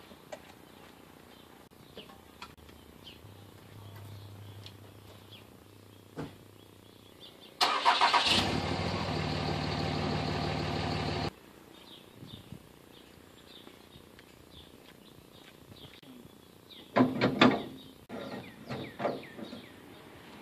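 Pickup truck engine cranking and catching, then idling steadily for a few seconds before cutting off sharply. A few knocks sound near the end.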